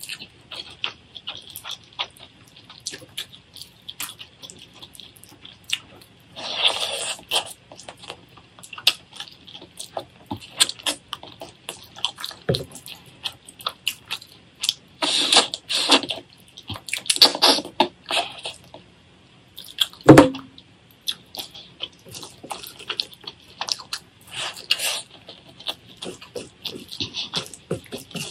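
Close-miked eating: wet chewing and smacking of rice and meat curry eaten by hand, made up of many sharp wet clicks with several louder runs of chewing. There is a single loud thump about twenty seconds in.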